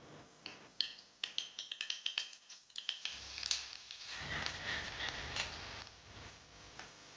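Kitchen clatter: a quick run of sharp clicks and taps, then a few seconds of rustling hiss that eases off near the end.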